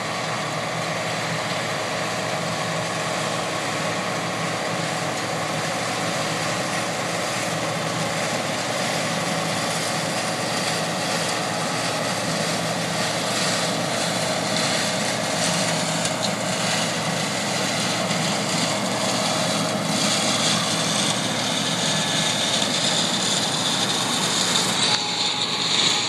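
Massey Ferguson 860 combine running steadily as it harvests soybeans close by: a steady machine noise of engine and threshing gear, growing slightly louder as it passes, with a high whine in the last few seconds.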